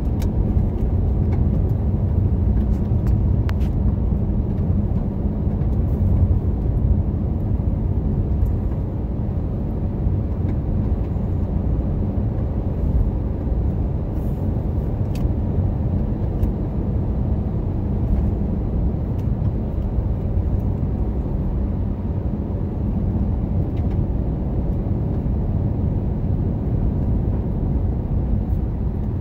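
A car driving at highway speed on a paved road: a steady low rumble of tyre and engine noise, even throughout, with a few faint ticks.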